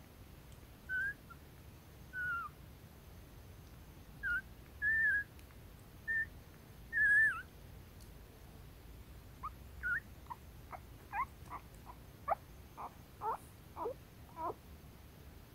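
Very young puppies squeaking and whimpering in a den: a few separate high squeaks about a second apart, then from about halfway through a quicker run of short, falling squeaks.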